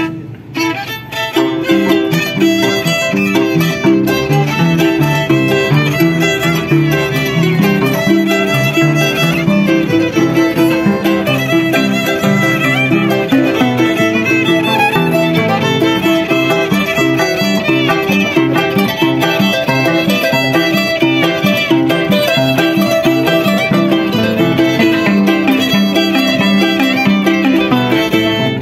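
Violin and Andean harp playing a tune together: the bowed violin carries the melody over the harp's plucked bass notes. The music comes in about a second in.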